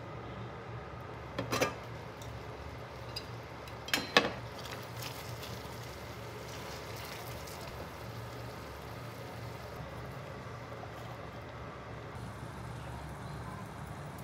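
Chopsticks and small ceramic dishes clinking: a sharp double clink about one and a half seconds in and a louder one about four seconds in, over the steady low hiss of a pan of sauce simmering on the hob.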